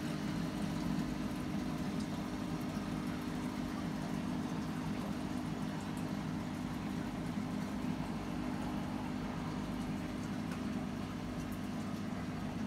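Steady low electrical hum of aquarium equipment, an even drone with a faint hiss above it.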